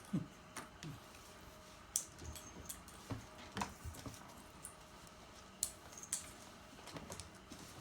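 Irregular light clicks and taps of a plastic medicine wrapper being batted and handled in play, a dozen or so scattered unevenly.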